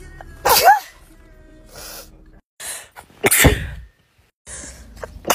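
A person sneezing in a string of separate sneezes: a voiced sneeze about half a second in, its pitch rising and then falling, short breathy sounds around two seconds in, then a second, louder sneeze just after three seconds, and a third starting at the very end.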